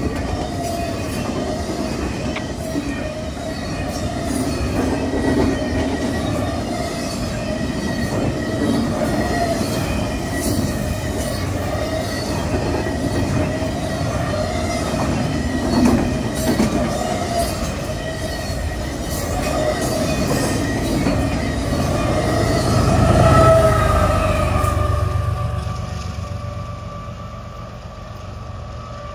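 Double-stack intermodal freight cars rolling past close by: a continuous rumble of steel wheels on rail, with steady squealing tones riding over it. Near the end the sound becomes quieter and lower.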